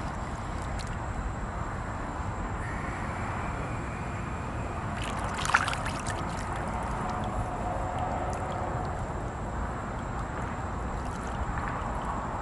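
Swimming-pool water lapping and sloshing around a person standing in it, with a louder splash of water about five and a half seconds in.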